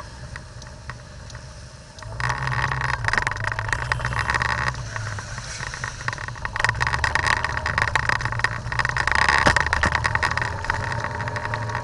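Car running in a heavy downpour, heard from inside the cabin: low engine hum and wet-road tyre noise, with a dense crackle of rain hitting the windshield and body. It all grows sharply louder about two seconds in.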